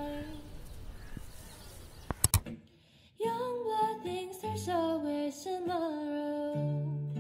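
Background music: a sung phrase fades out, two sharp clicks come a little over two seconds in, and after a brief gap a new song starts about three seconds in, a voice singing over guitar and low notes.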